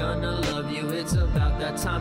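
Background music with a steady beat: deep bass notes that slide down in pitch, over regular crisp ticks.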